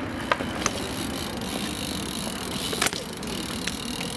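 BMX bike rolling on concrete: steady tyre noise with a few sharp clicks and knocks from the bike.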